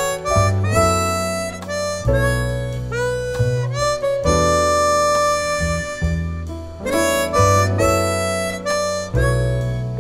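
Hohner Ace chromatic harmonica playing a slow, legato melody with smooth slides between notes, over a backing track with guitar and a held bass line.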